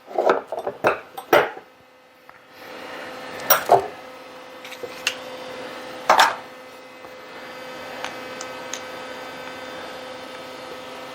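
Metal drill-press parts knocking and clanking as they are handled during disassembly, several quick knocks at first and a couple more later. About two and a half seconds in, a steady hum starts and keeps on underneath.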